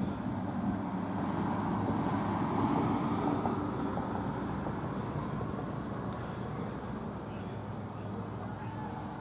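Outdoor crowd murmur from the stands: a steady haze of indistinct voices, fading a little toward the end.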